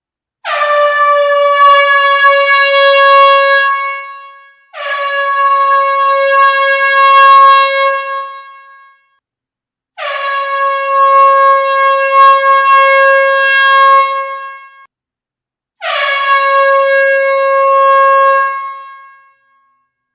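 An air horn sounding four long, loud blasts with brief gaps between them. Each blast drops slightly in pitch as it starts, then holds one steady note and fades away at its end.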